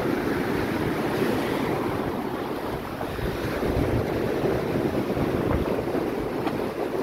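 Heavy storm surf rushing and breaking steadily on the beach at high tide, with wind buffeting the microphone.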